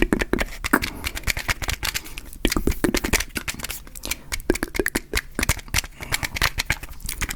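Matchbox and matches handled close to the microphone: rapid, irregular clicking and rattling.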